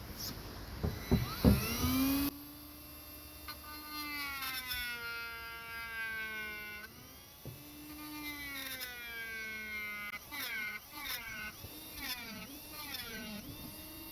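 Dremel rotary tool with a carbide burr running at high speed, being pressed into a wooden axe wedge to burn a texture into it. Its whine sags and recovers in long swells, then wavers in quick short dips near the end. A few knocks come in the first two seconds.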